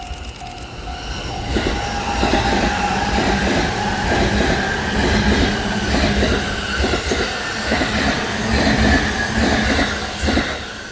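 Japanese level-crossing warning bell ringing in a steady on-off pattern, soon drowned as an electric commuter train passes close by. The train's wheels clatter over the rail joints, with a running hum, loudest from about two seconds in until just before the end.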